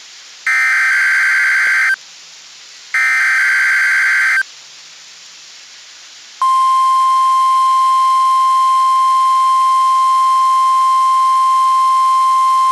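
NOAA Weather Radio required weekly test: two SAME header data bursts, each a buzzing digital warble about a second and a half long with a second of radio hiss between them. About six seconds in, the steady 1050 Hz warning alarm tone starts and holds unbroken to the end.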